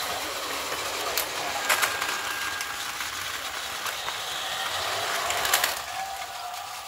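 Plarail battery-powered toy train set running on its plastic track: a small motor's steady whir, with a few sharp plastic clicks.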